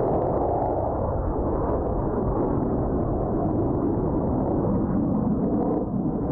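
Steady jet roar of the Blue Angels' F/A-18 Hornets flying as a four-ship formation, heard from the ground as a deep, even rumble.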